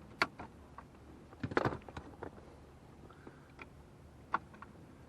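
Scattered light clicks and taps of hand work on the plastic HVAC control unit and its cable in a truck dash: a sharp click just after the start, a quick cluster of clicks about a second and a half in, then a few single ticks spaced out.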